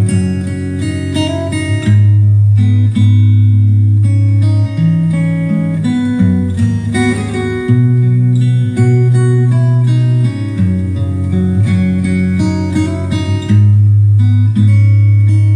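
Instrumental guitar music with plucked acoustic guitar over a strong, steady bass line, played loud through a karaoke sound system's amplifier and speakers.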